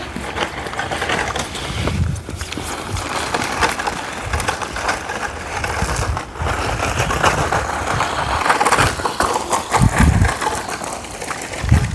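DEERC 9308E 1:16 electric RC monster truck driving over rough ground, a noisy, uneven crunching and rattling from its tyres and chassis, with occasional low thumps.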